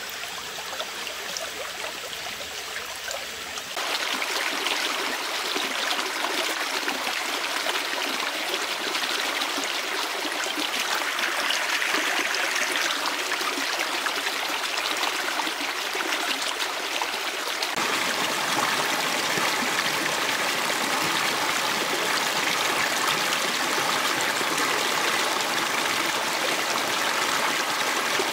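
A stream running steadily: an even rush and trickle of flowing water, growing louder about four seconds in.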